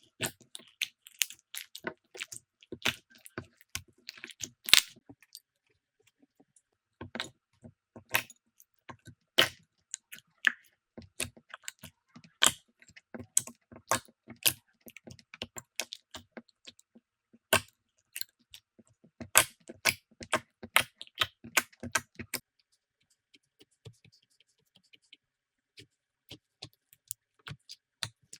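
Slime being pressed, poked and squeezed by hand, giving a stream of irregular sharp clicks, crackles and pops. The clicks thin out into a quieter stretch near the end.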